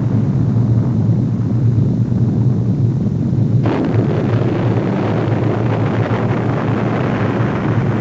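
Explosion sound effect: a deep, continuous rumble. About three and a half seconds in, a sudden harsher blast adds a wide roar that slowly dies away.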